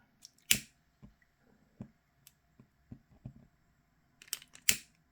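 A hand-held lighter being struck, with sharp clicks about half a second in and again near the end, and small taps of handling in between.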